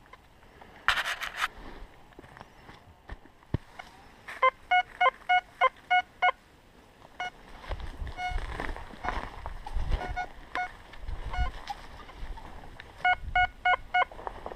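Metal detector beeping on a target: two runs of short, even beeps at one pitch, about four a second, the first about four seconds in and the second near the end. A brief scrape about a second in, and low rumbling handling noise in between.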